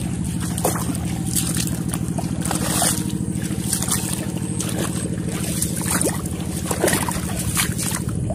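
Two-wheel hand tractor's single-cylinder diesel engine running steadily with a fast, even putter, with scattered splashes in the flooded, muddy paddy.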